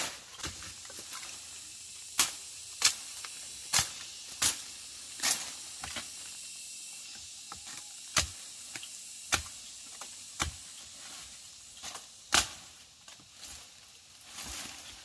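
Sharp cracks of plant stems being cut or snapped during harvesting, about nine at uneven intervals, over a faint steady hiss.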